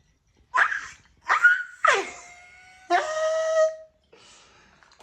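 Several short, high-pitched squealing calls from a voice, the last one held on a steady pitch for nearly a second.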